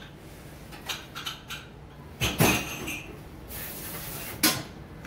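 Restaurant kitchen clatter: scattered knocks and clinks of plates and utensils, the loudest about two and a half seconds in and a sharp one near the end, with a brief hiss just before it.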